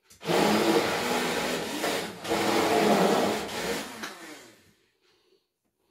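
Hand-held immersion blender running in a jar of homemade mayonnaise (egg, oil and vinegar being emulsified). It cuts out briefly about two seconds in, then winds down and stops a little after four seconds, with the mayonnaise finished.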